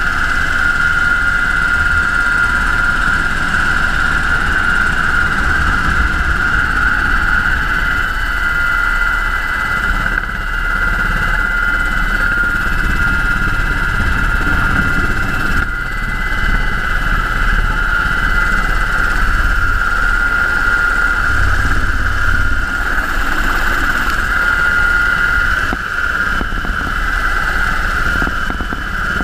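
UH-60 Black Hawk helicopter in flight, its engines and rotors running steadily: a constant high whine over a low, fluttering rumble.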